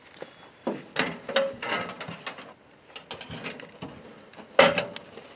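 Latch and door of an aluminium dog box on a pickup's tailgate clanking and rattling as the box is opened and a hound is let out, with the loudest metallic clank near the end.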